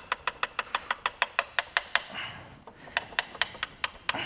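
Rapid, evenly spaced metallic clicking, about six clicks a second, with a short pause about two seconds in: a hand ratchet being worked on a fastener in an engine bay.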